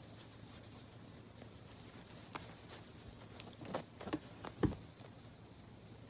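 Quiet scuffling of a kitten wrestling with a hand on a cloth blanket, with a few soft taps and thumps, most between about three and a half and five seconds in.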